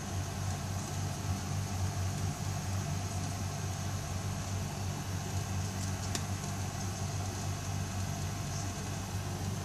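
A steady low hum with a faint high hiss, unchanging throughout, and one short click about six seconds in.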